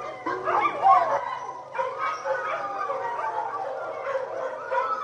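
A large group of dogs howling together in a chorus, many long overlapping howls rising and falling in pitch.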